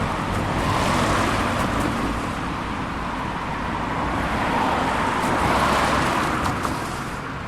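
Road traffic on a high-speed road: cars passing at speed, their tyre and engine noise swelling as each one goes by, loudest about a second in and again around five to six seconds.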